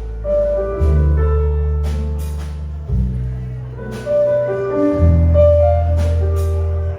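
Small jazz combo of piano, trombone, bass and drums playing a slow ballad, with long low bass notes changing every second or two under piano and melody notes and regular cymbal strokes.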